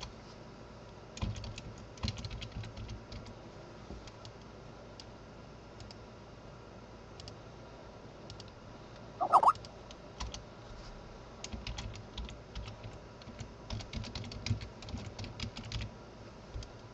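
Computer keyboard typing in short bursts of key clicks, with pauses between them. About nine seconds in, a brief pitched sound stands out as the loudest moment.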